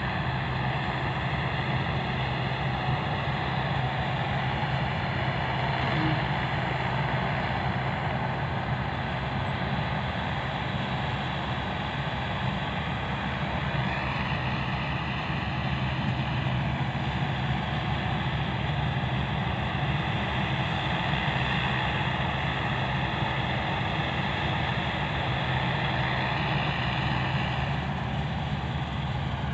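Combine harvester running steadily as it cuts a rice crop: a constant engine and machinery hum with no change in pace.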